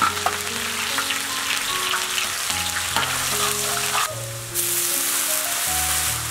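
Chillies, garlic, ginger and whole spices sizzling hard in hot oil in a wok, with a few clicks of a metal spatula against the pan. About four seconds in the sizzle briefly drops away, then comes back louder and hissier as water goes into the hot oil.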